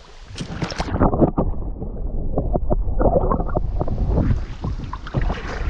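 Low rumbling wind noise buffeting the microphone, with irregular knocks and bumps, briefly muffled for a few seconds about a second in.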